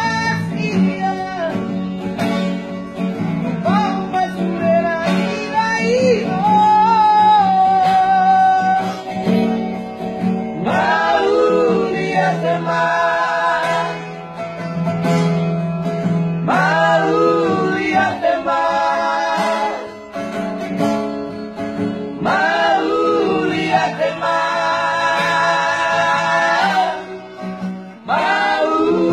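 Live male singing of a Batak song to an acoustic guitar, with long held notes sung with a wavering vibrato and short breaks between phrases.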